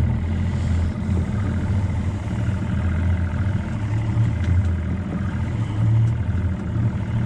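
Small outboard motor on an aluminium jon boat idling steadily at low speed while the boat holds position.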